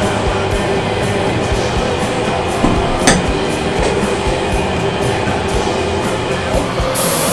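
Background music with a steady beat. The hiss of a spray gun stops just before and starts again near the end, and there is a sharp tick about three seconds in.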